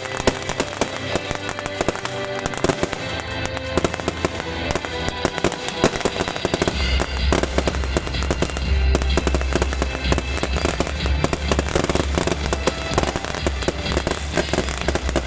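Beehive fireworks going off: a dense, continuous crackle of many small rocket bangs in quick succession. Music plays over it, and a heavy bass comes in about halfway through.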